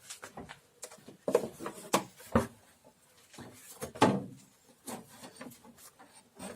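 Knocks and clatters of plastic engine-bay parts as an intake assembly is worked loose and lifted out of a car engine bay, with several sharp knocks and rustling handling in between.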